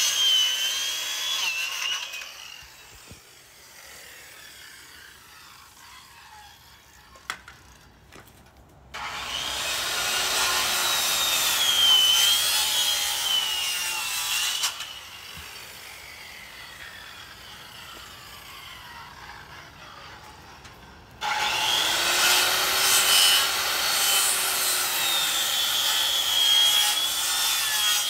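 Corded circular saw cutting through the tops of pressure-treated wooden fence posts: three loud cuts with a high whine, one ending about two seconds in, another from about nine to fifteen seconds, and a third starting about twenty-one seconds in, with quieter gaps between.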